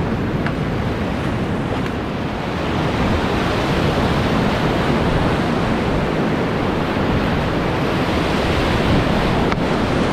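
Whitewater rapids rushing, loud and steady, heard close up from a kayak in the middle of the rapid; the rush grows a little louder about two and a half seconds in.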